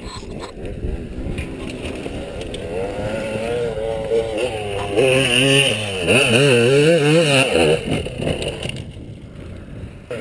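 Honda TRX450R quad's single-cylinder four-stroke engine running close by, its pitch rising and falling with small throttle blips, loudest in the middle and easing back near the end.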